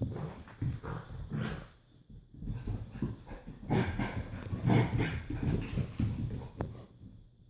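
An excited, hyperactive puppy making dog noises in irregular bursts, dipping briefly about two seconds in and fading near the end.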